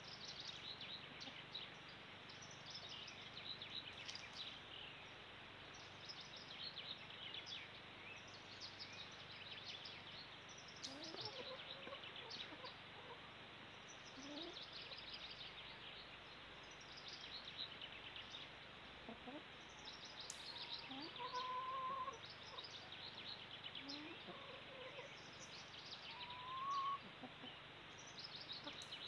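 Small birds chirping and twittering faintly and almost continuously, with a few lower, gliding calls in the second half, the loudest near the end.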